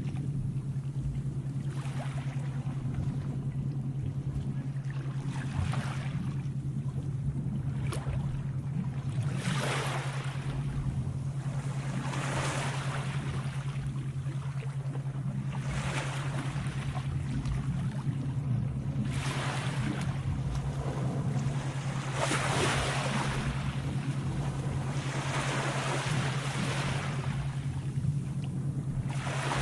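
Sea waves washing in and draining back every three to four seconds, over a steady low hum.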